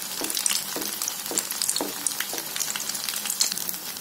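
Malpua batter deep-frying in hot ghee: a steady sizzle full of small crackling pops. Hot ghee is spooned over it in repeated strokes, about two a second, through the first half.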